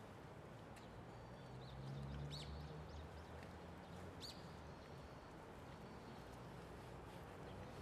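Faint outdoor ambience with a few short, high bird chirps, about two seconds in and again about four seconds in.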